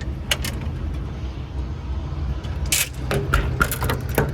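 A Ford F550's 6.8-liter V10 gas engine idling steadily, with scattered short clicks and scuffs over it.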